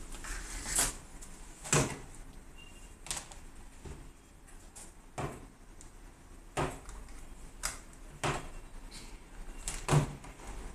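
Irregular clicks and knocks from hands handling a small plastic Android TV box and its plugged-in cables, about eight knocks spread unevenly, the loudest near the end.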